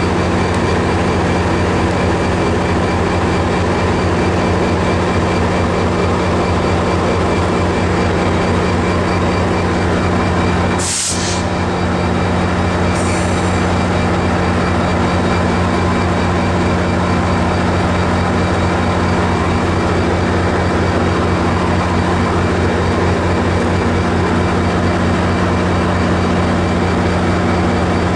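MARC MP36PH-3C diesel locomotive standing with its engine running at a steady, unchanging drone. A brief burst of noise comes about eleven seconds in.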